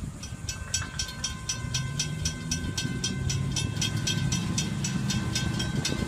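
Railroad grade-crossing warning bell ringing rapidly and evenly, about four to five strikes a second. Under it is a low rumble from road traffic at the crossing.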